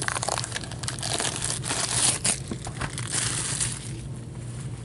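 Plastic wrapping crinkling and tearing as a sealed hockey card hobby box is unwrapped and opened, with a dense crackle that is loudest about two seconds in and again around three seconds.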